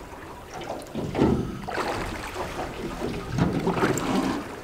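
Water lapping against the hull of a small aluminium fishing boat, coming in uneven surges.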